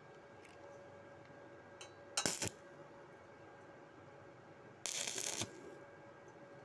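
Stick-welding arc crackling in two short bursts, each well under a second, as a flux-coated electrode is struck on steel plate to lay tack welds at the joint.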